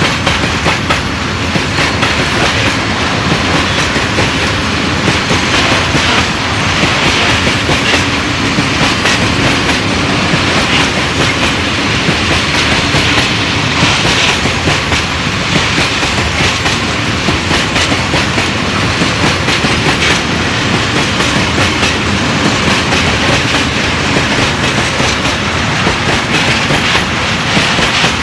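Freight train rolling past, its wagons' wheels clattering steadily over the rail joints in a continuous clickety-clack.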